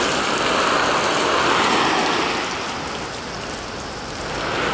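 Garden hose spray nozzle on its shower setting spraying water onto a Tyvek tarp: a steady rushing spray that eases slightly past the middle and cuts off sharply at the end.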